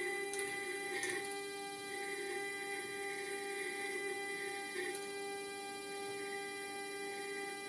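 Steady electrical hum from the powered-up Sperry AD-300C attitude director indicator and its synchro transmitter drive. There are faint clicks and a brief swell about a second in and again near five seconds, as the synchro shaft is turned by hand and the pitch sphere follows.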